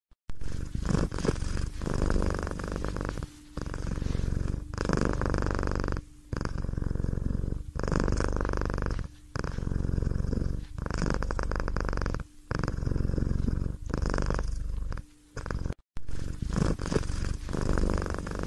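A domestic cat purring close up, in steady swells of about one to one and a half seconds as it breathes in and out, with short dips between them. There is a brief break about sixteen seconds in.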